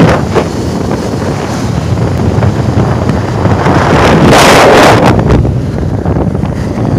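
Heavy wind buffeting a phone microphone while riding at road speed on a moving motorbike, a rough rushing rumble that swells into a louder gust about four seconds in.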